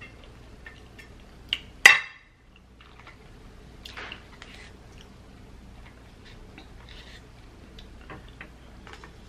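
A spoon scooping rice out of a small takeout cup and tipping it into bowls of gumbo: soft scrapes and light clicks of utensil on containers, with one sharp click about two seconds in.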